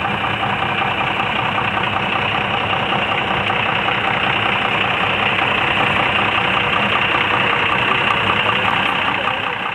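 Motor vehicle engine running steadily together with road noise, heard from inside the vehicle.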